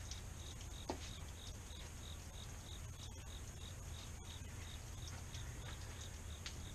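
Crickets chirping faintly in an even rhythm, about three short chirps a second, over a steady high insect hum. A faint knock comes about a second in.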